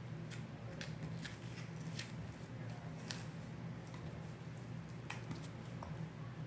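Slime being stretched and squeezed by hand, giving irregular small sticky clicks and pops.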